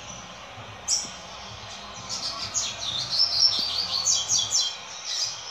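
A young double-collared seedeater (coleiro) singing in its cage. One sharp high note about a second in, then a fast run of short, falling high notes that ends near the end.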